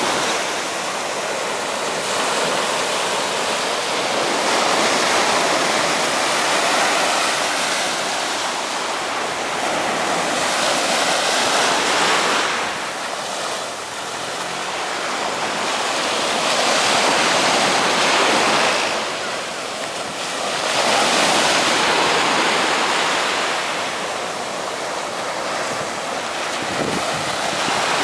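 Small waves breaking and washing up a sandy beach: a steady rushing of surf that swells and falls back every four to five seconds.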